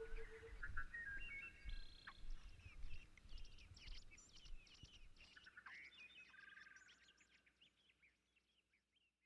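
Small forest birds singing, a mix of short chirps and trills, over a low rumble, fading away to silence.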